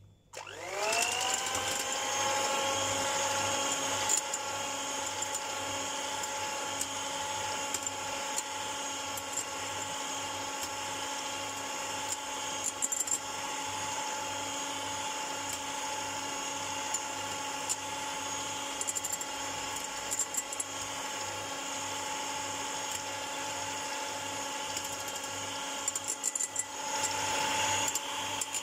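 Electric hand mixer switched on and beating egg whites into a stiff meringue in a glass bowl. Its motor spins up with a quickly rising whine, then runs at a steady pitch, with a few light clicks from the beaters in the bowl.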